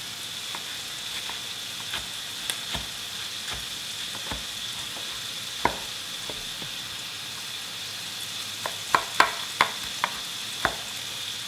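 Chef's knife chopping kimchi on a wooden cutting board: scattered knocks, then a quicker run of sharper chops near the end. Underneath, the steady sizzle of pork belly frying in sesame oil over medium heat.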